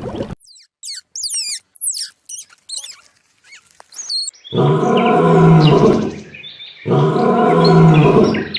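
Quick high chirps and whistles that slide up and down, typical of birds calling, for about the first four seconds. Then two long, loud, low animal calls, each about a second and a half, with a short gap between them.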